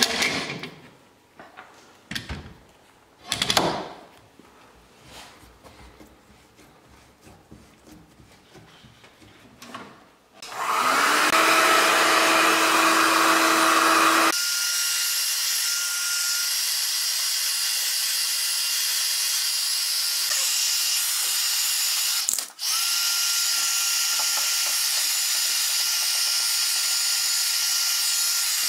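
A few sharp clicks and knocks from a bar clamp being slid and tightened. Then, about ten seconds in, a DeWalt heat gun starts and blows steadily with a thin fan whine, heating beech slats to bend them without steaming, and it cuts out briefly once about two-thirds of the way through.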